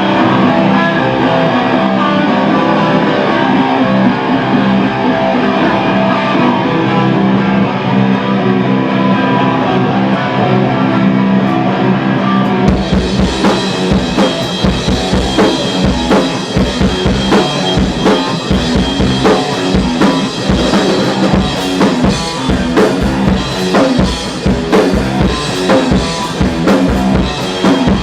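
Heavy metal band playing live in rehearsal: guitar and bass sustain ringing chords without drums, then about halfway through the drum kit comes in with bass drum and cymbals and the full band plays a heavy, driving part.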